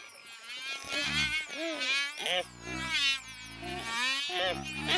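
Cartoon housefly buzzing as it flies around, its pitch wavering up and down.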